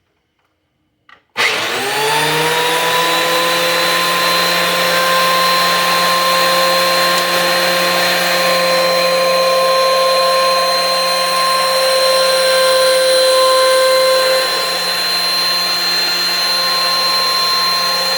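DeWalt benchtop thickness planer starting up, its motor whine rising in pitch as the cutterhead spins up about a second and a half in, then running steadily at full speed with a high whine.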